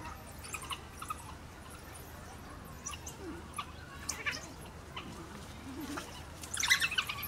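Young African wild dogs calling with short, high-pitched squeaks and whines while they tussle. A louder flurry of high calls comes about six and a half seconds in.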